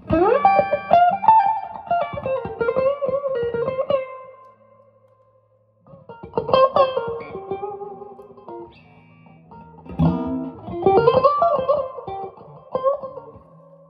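Electric guitar with a Ron Ellis '64 pickup set, played through a Two-Rock Bill Krinard amp. It plays three lead phrases of bent and sustained ringing notes, with a pause of about two seconds after the first phrase.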